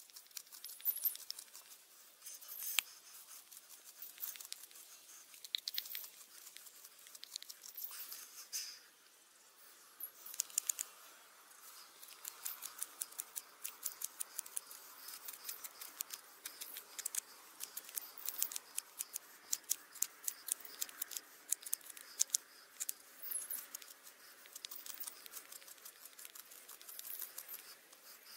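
Knife blade shaving a small piece of wood by hand: a run of short scraping cuts, sparse at first and coming thick and fast from about ten seconds in.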